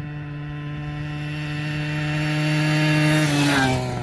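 49cc two-stroke pocket ATV engine buzzing at a steady high pitch and growing louder as it approaches, then dropping in pitch as it passes, a little over three seconds in.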